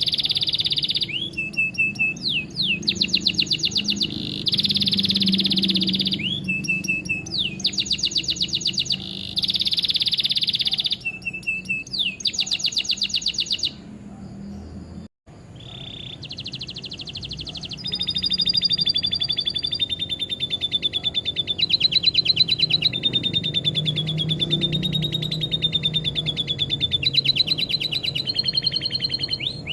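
Domestic canary singing a long song of rapid rolling trills and sweeping chattering phrases, including lovebird-style phrases it has learned. The song breaks off briefly about halfway through.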